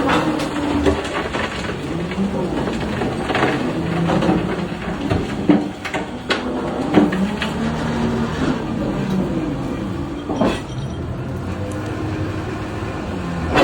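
Heavy mining machinery working at a rail loading point: a steady mechanical rumble with low motor tones that rise and fall in pitch, broken by several sharp metallic clanks.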